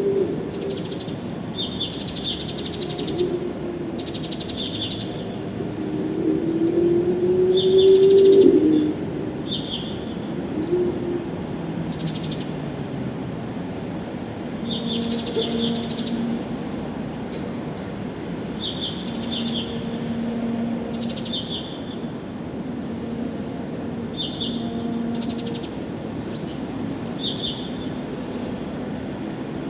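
Songbirds chirping in repeated short, high clusters throughout. Underneath, a low droning sound rises in pitch and is loudest about eight seconds in, and later several low steady tones come and go, each about a second long.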